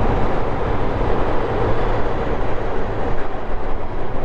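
Motorcycle riding at speed: a steady rush of wind and road noise with the engine running underneath.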